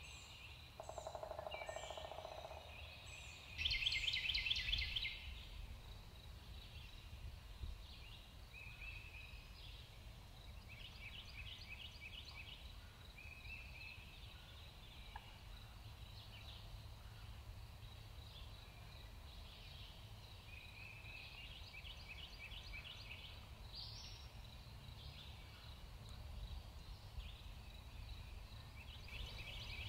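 Wild turkey gobbling from a tree: a rapid rattling call repeated about four times, the loudest about four seconds in, over a steady high-pitched tone.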